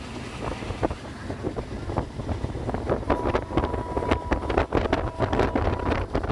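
Wind buffeting a handheld phone's microphone, with a constant low rumble and many short crunches and knocks from walking and handling, growing busier after about two seconds. A faint thin steady tone is held for about three seconds in the middle.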